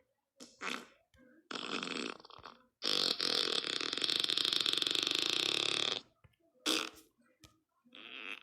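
Fart sound effects one after another: several short ones, then a long one of about three seconds, then more short ones near the end.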